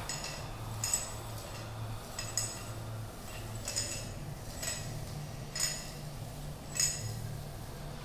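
Small hard objects lightly clinked, about six sparse strikes at irregular intervals, each with a short, bright ring, over a steady low hum.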